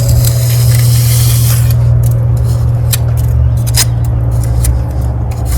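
Steel pointing trowel scraping fresh mortar in brick joints as the joint edges are trimmed. A longer scrape in the first couple of seconds is followed by a few short scrapes, over a steady low hum.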